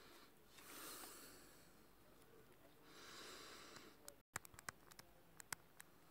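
Near silence with two faint breaths, one early and one in the middle, then a few soft clicks in the second half.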